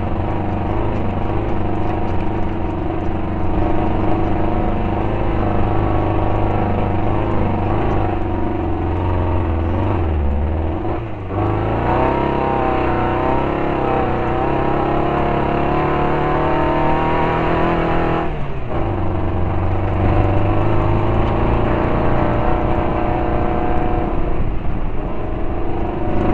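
Air-cooled VW 1600 flat-four engine of a Class 5-1600 Baja race car running hard under load, misfiring on only three of its four cylinders. About eleven seconds in the sound briefly dips at a gear change, then the engine pitch rises steadily for several seconds before falling again at the next shift near eighteen seconds.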